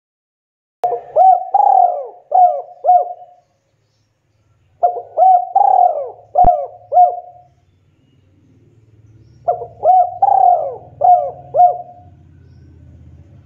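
Spotted dove cooing: three phrases of five or six quick, hooked coo notes each, a second or two apart. A single sharp click falls in the middle of the second phrase.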